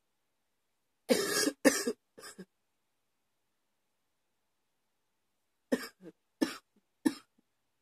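A woman coughing: a bout of three coughs about a second in, then after a pause of about three seconds, another bout of three evenly spaced coughs.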